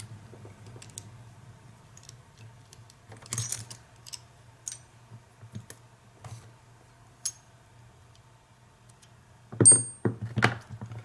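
Metal hand tools clicking and clinking as they are rummaged through in a tool drawer to find a Phillips screwdriver, in scattered light taps, with a louder clatter and a short metallic ring near the end.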